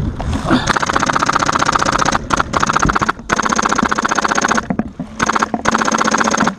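Custom HPA-powered G&P M249 Para airsoft light machine gun firing full-auto in long bursts: a fast, even rattle starting about a second in, broken by a few short pauses.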